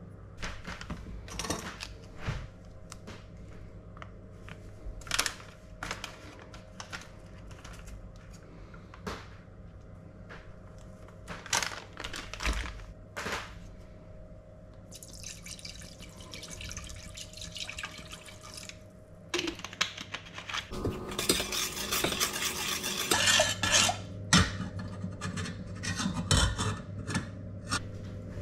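A metal spoon and a spice jar clink and knock against a stainless-steel saucepan as paprika and tomato paste go in. Midway, liquid pours from a plastic bottle into the pot with a hiss, followed by a louder rush of liquid and more clinking of stirring. A steady low hum runs underneath.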